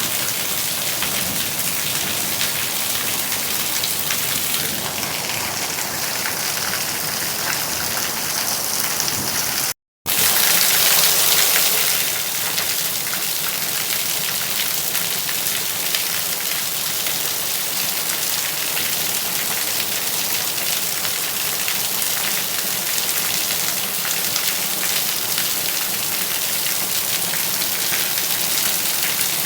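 Steady rain falling on a surface, an even hiss of drops. It cuts out completely for a split second about a third of the way in, then comes back briefly louder before settling.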